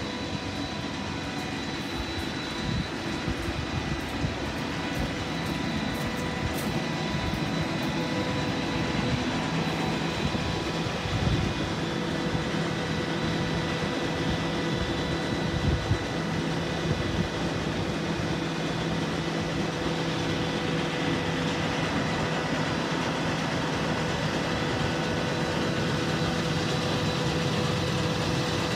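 Heavy truck's diesel engine running steadily at idle, a low drone with a steady whine over it and a couple of brief knocks about halfway through.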